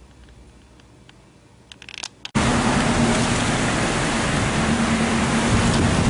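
Quiet at first with a few faint clicks, then about two seconds in a sudden switch to loud, steady outdoor noise: wind buffeting the microphone along with passing street traffic.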